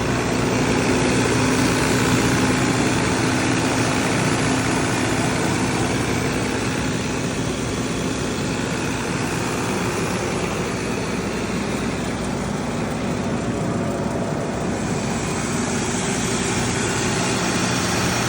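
A Generac 30 kW diesel generator running at a steady speed: an even mechanical hum with a dense rushing noise, unchanging throughout.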